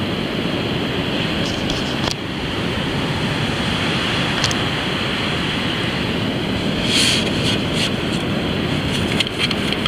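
Steady ocean surf and wind noise, with a few short scrapes and rattles of a sand scoop digging a coin out of beach sand, clustered about seven seconds in and near the end.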